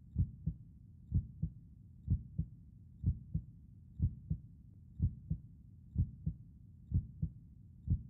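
Human heartbeat: a steady lub-dub double thump about once a second, deep and low-pitched.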